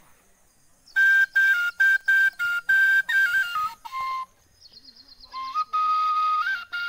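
Bamboo flute (bansuri) played solo: a run of short, separated notes that step downward in pitch, then after a brief pause a long held note with small ornamental turns.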